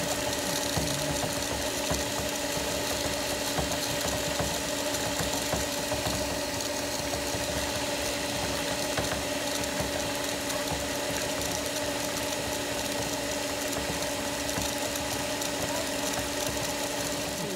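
Pool pump motor running with a steady hum while water rushes through a sand filter's multiport valve on backwash.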